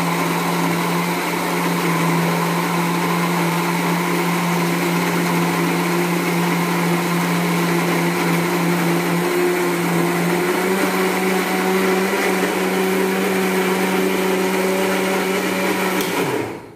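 Electric mixer grinder running with a steel jar, blending semolina and water into a thick batter. Steady motor whine that rises slightly in pitch about ten seconds in, then cuts off just before the end.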